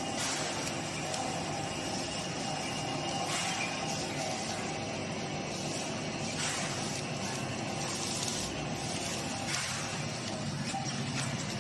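Steady workshop background noise, with a brief rustle of plastic packaging film about every three seconds as the film is handled on the packing machine's forming tube.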